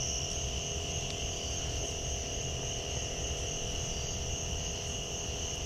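Steady chorus of insects droning in two high pitches, over a low rumble.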